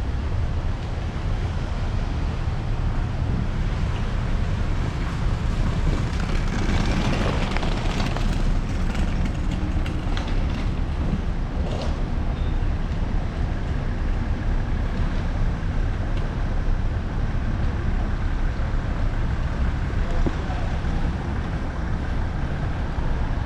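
Street traffic ambience: a steady low rumble of vehicles, with a louder stretch as a vehicle passes about seven seconds in and a few sharp clicks soon after.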